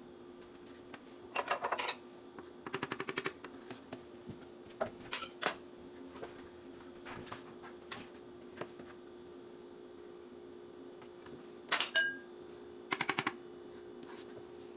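A measuring cup and utensils clinking and scraping against a flour container and a ceramic mixing bowl as flour is measured in. The sound comes in about five short bursts of clinks and quick rattles, the loudest near the start and about twelve seconds in.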